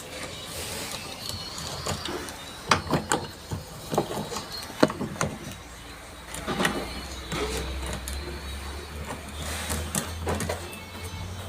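Irregular clicks and knocks of parts and tools being handled, with a low hum that comes in about halfway through.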